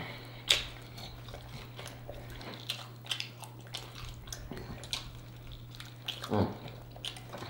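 Close-miked eating of sauced chicken wings: wet mouth smacks, sucking and small clicks as meat is stripped from the bones, the sharpest click about half a second in. A short hummed "mm" just past six seconds, over a steady low hum.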